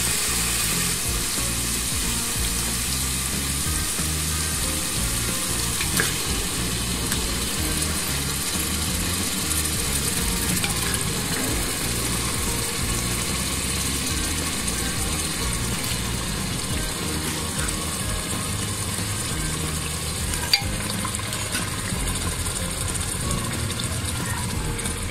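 Oil and spice paste sizzling in a cooking pot as pieces of marinated mutton are added to fry. The sizzle is steady, with an occasional sharp click from the pot, the loudest about 20 seconds in.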